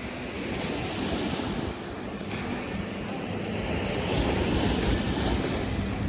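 Surf washing onto a beach, with wind buffeting the microphone in a low, gusty rumble. The wash of the waves grows fuller about two-thirds of the way in.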